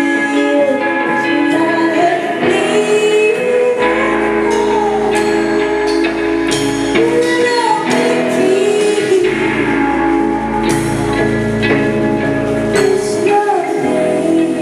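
A live indie rock band playing, with a woman singing over guitars and drums. A deep bass layer comes in about four seconds in and drops away near the end.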